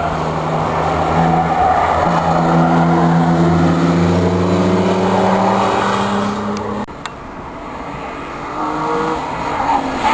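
BMW M3 engine pulling hard, its loud intake note climbing slowly in pitch under acceleration. About two-thirds in the sound drops away suddenly, and a quieter engine note climbs again near the end.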